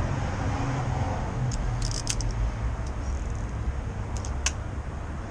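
Small metallic clicks and taps in two short clusters, from hand tools and parts being worked on a motorcycle handlebar's bar-end piece, over a low steady background rumble.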